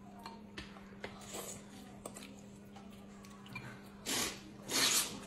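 Noodles being slurped with chopsticks: two loud slurps near the end, a short one and then a longer one, after a few soft clicks and small mouth sounds.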